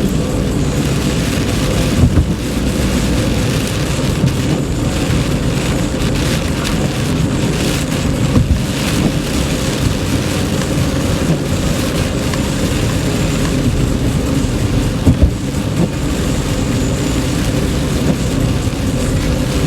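Heavy rain falling on a moving car, over a steady rumble of road and engine noise, with a few short bumps.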